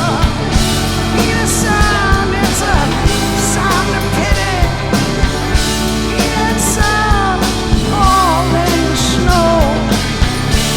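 Live rock band playing loudly, with drums keeping a steady beat under a melody line that bends and slides up and down.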